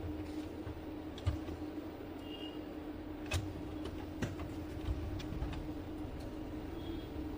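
Scattered sharp clicks and light knocks of an HP LaserJet M1005 printer's parts being handled and fitted back together during reassembly, over a steady low hum.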